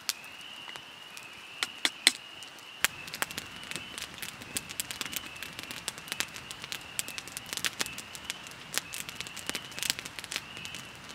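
Wood campfire crackling and popping with irregular sharp snaps, a few loud ones about two seconds in. A steady, faint high-pitched drone runs behind it.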